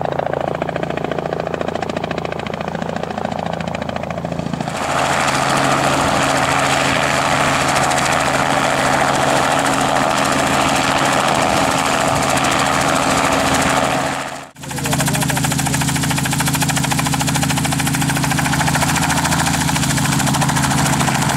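Robinson R44 helicopter running in flight and hover, the rotor beat and six-cylinder piston engine steady. About five seconds in it becomes much louder and fuller as it is heard close up, with a split-second dropout about two-thirds of the way through.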